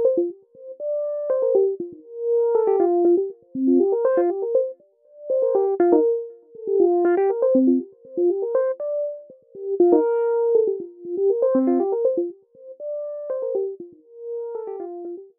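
Background music: a mid-pitched keyboard melody of quick notes, played in short phrases about every two seconds.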